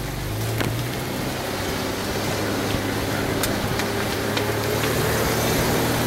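An off-road 4x4 vehicle's engine running steadily at low revs, with a few light clicks over it.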